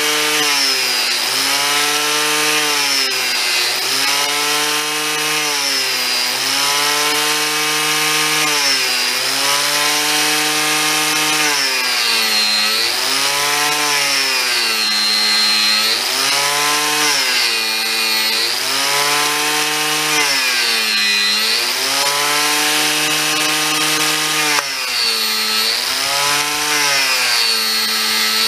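Electric angle grinder cutting into solid French oak, rounding the end of a water-wheel axle-tree. The motor's pitch sags each time the cutter bites into the wood and picks up again as the load eases, about every two seconds, over a steady cutting rasp.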